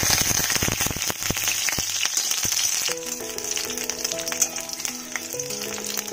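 Chopped garlic and a dried red chilli sizzling and crackling in hot mustard oil in a wok, strongest at first and settling a little after a few seconds. Soft background music comes in about halfway through.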